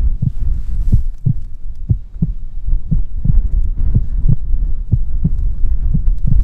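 Heartbeat sound effect: paired low thumps, lub-dub, about once a second, over a steady low rumble.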